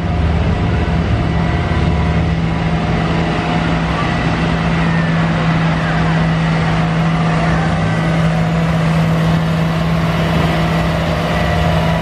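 John Deere farm tractors driving past, their diesel engines running with a steady hum.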